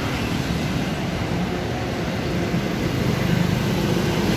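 Motor vehicle traffic noise: a steady rush with a faint low engine hum, growing a little louder near the end.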